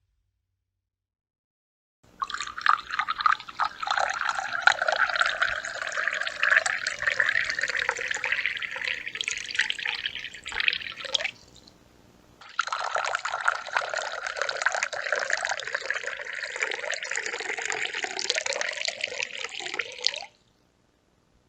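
Water poured into a drinking glass in two long pours, each splashing and gurgling steadily for about eight to nine seconds, with a short pause between them. Each pour cuts off suddenly.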